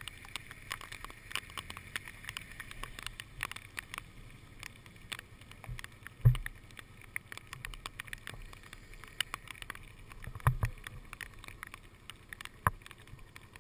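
Adventure motorcycle riding slowly over a rough, wet dirt road, its engine a muffled low rumble under many small clicks and knocks from the camera and bike jolting, with heavier thumps about six, ten and a half and twelve and a half seconds in.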